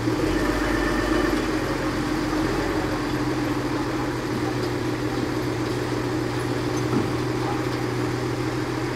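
Large TCM diesel forklift's engine running steadily at low revs as the truck creeps along. A single light knock about seven seconds in.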